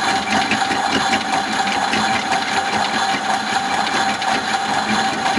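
Little Helper toy washing machine running its spin cycle: a steady mechanical whirring with a constant hum.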